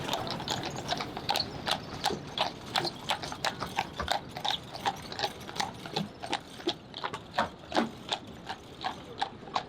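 Horse's hooves clip-clopping on a road as a horse-drawn carriage moves along at a walk: a steady, even run of hoof strikes, several a second.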